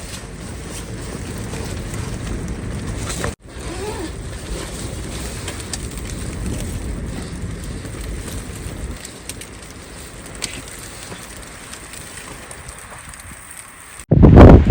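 Wind buffeting the microphone in a snowstorm, a steady low rushing that drops out for an instant about three seconds in. Near the end a sudden, louder burst of noise breaks in.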